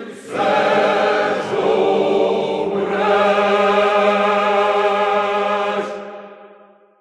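A mixed folk choir sings the closing phrase of a Ukrainian drinking song. It ends on a long held chord that fades out near the end.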